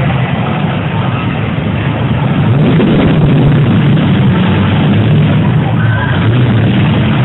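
Demolition derby cars' engines running and revving together, a loud steady mass of engine noise.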